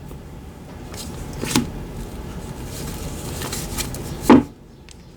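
Tarot cards being handled on a table: a soft rustle with a few light taps, and one louder knock about four seconds in.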